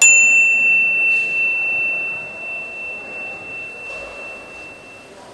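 A single high ringing ding, struck sharply and fading out over about five seconds, over faint steady factory noise.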